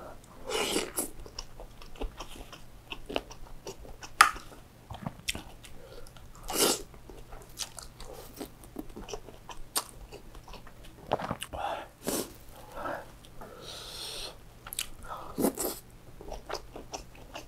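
Close-miked eating of chili-oil noodles: wet chewing, noodle slurps and mouth clicks at irregular intervals, with a breathy blow of air late on.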